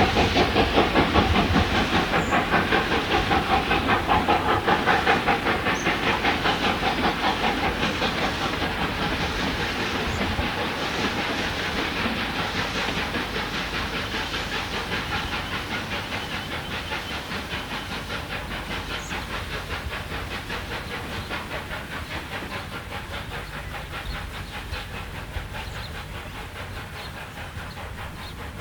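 Steam locomotive 520, a 4-8-4, working under steam: a fast, even beat of exhaust chuffs with steam hiss, growing steadily fainter.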